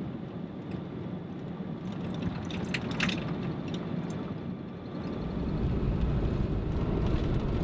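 Vehicle driving on a dirt road: steady tyre and engine rumble with a few light clicks, the low rumble growing louder about two-thirds of the way in.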